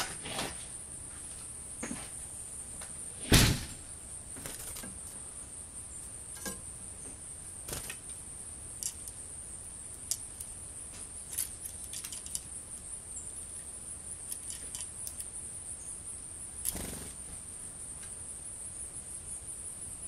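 Steady high-pitched insect chorus, like autumn crickets, with scattered sharp clicks and knocks over it. The loudest knock comes about three seconds in, and another near the end.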